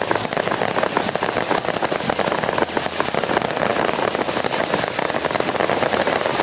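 Aerial fireworks bursting overhead: many shells and crackling stars going off together, a rapid, near-continuous crackle and pop.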